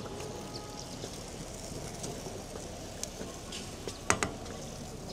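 Steady hubbub of a busy open-air food market, with a few sharp clinks of a cook's metal utensils at a pancake griddle, one about three seconds in and two just after four seconds.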